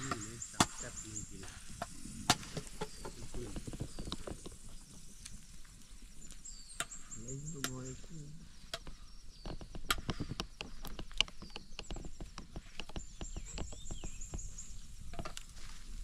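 Wood campfire crackling, with sharp irregular snaps and pops throughout. High, quick chirping trills come in several times.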